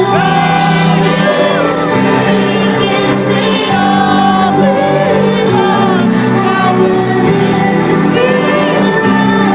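Trance music with a sung vocal line over sustained synth chords, played loud and steady.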